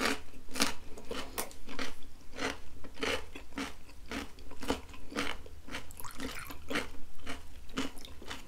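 Crunchy chewing of a bite of raw cucumber close to a clip-on microphone, a sharp crunch about twice a second.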